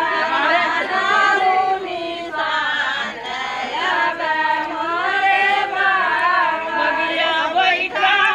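A group of people singing together, several voices at once.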